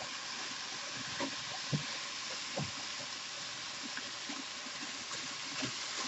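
Stew beef sizzling in a pan, a steady hiss with a few scattered pops, as the water cooked out of the meat boils off and the meat browns.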